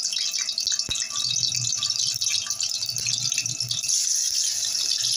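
Hot cooking oil sizzling and crackling in a wok-shaped pan, growing louder about four seconds in. There is a single knock a little under a second in.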